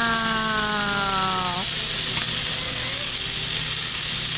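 Thin slices of raw beef sizzling on a hot tabletop Korean barbecue grill plate as more are laid on with tongs, a steady hiss. A long held tone that sinks slightly in pitch runs over it for the first second and a half, then stops.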